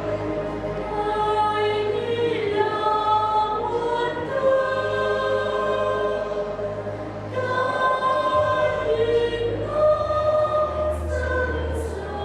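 Church choir singing a Vietnamese Christmas hymn, several voices held together on sustained notes.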